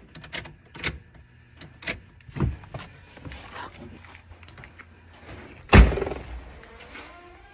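A run of scattered sharp clicks and knocks, then one heavy thump a little under six seconds in, the loudest sound, ringing briefly afterwards.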